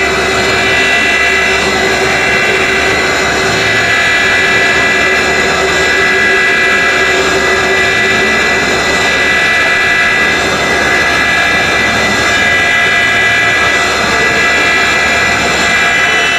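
Serrated-blade grinding machine's grinding wheel spinning at speed, a steady whine of several tones that holds even throughout.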